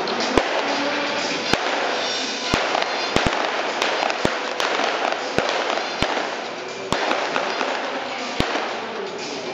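Stunt-show pyrotechnics: about a dozen sharp cracks and bangs at irregular intervals, over a continuous bed of music and noise.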